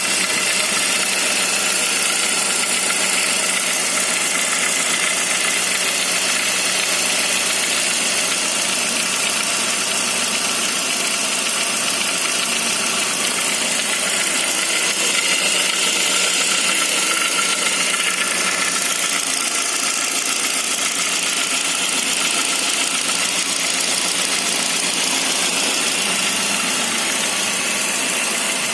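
Saab 9-5 engine running cold at a steady idle, making the strange noise it has when cold; the sound holds even and unchanging throughout.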